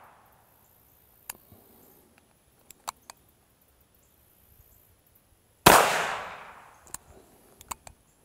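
A single shot from a Smith & Wesson .500 Magnum revolver with a muzzle brake, firing 300-grain hollow points, about five and a half seconds in: very loud, with a long ringing decay of more than a second. Near the start the tail of the previous shot is still dying away, and a few short sharp clicks fall between the shots.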